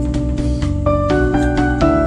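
Instrumental background music: a melody of held notes, with new notes coming in about a second in and again near the end.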